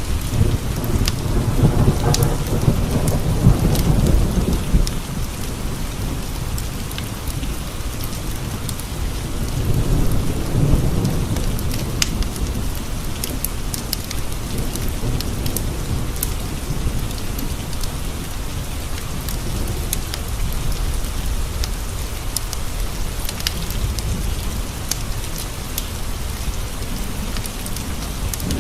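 Steady rain pattering on window glass, with thunder rumbling low twice, the longer roll about a second in and a shorter one around ten seconds in. Scattered sharp crackles from a wood fire sound over the rain.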